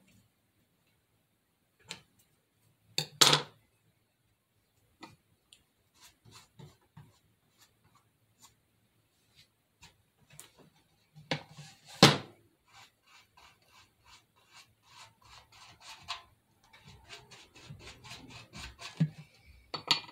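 Hands handling craft materials and tools on a table: scattered light clicks and rubbing, with two sharp knocks about three seconds in and about twelve seconds in, the second the loudest. Near the end there is a quick run of scratchy ticks.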